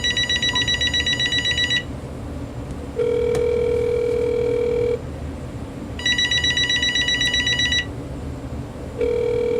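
General Electric 2.4 GHz cordless phone's electronic ringer trilling in two bursts of about two seconds each. Between them comes a steady, lower ringback tone from the calling line, heard twice, the second starting near the end. The call goes unanswered and the answering machine does not pick up.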